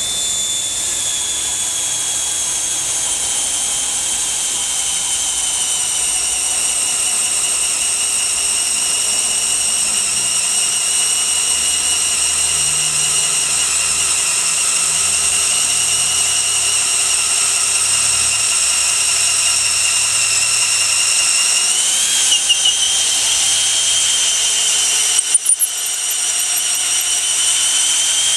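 Makita XFD01 cordless drill in low gear, driving a 10 mm auger bit into very hard manuka wood. It gives one long, steady motor whine that sinks in pitch over the first few seconds. The whine wavers and briefly stutters near the end, then cuts off suddenly.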